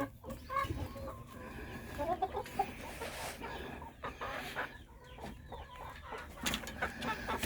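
Broody hen clucking quietly in short, scattered calls, the low grumbling talk of a hen sitting on eggs, with a couple of light knocks near the end.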